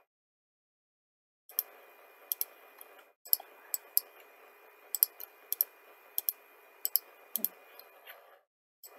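Computer mouse clicking, about fifteen sharp single clicks at irregular intervals, over a faint hiss that cuts out now and then.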